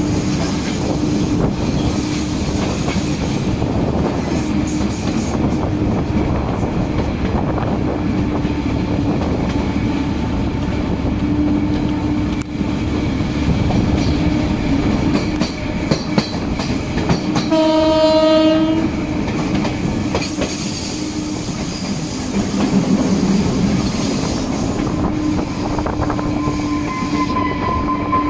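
Renfe series 442 metre-gauge electric train running, with a steady rumble, wheels clacking on the track and a constant hum. The horn sounds once, a short blast of just over a second about two-thirds of the way through.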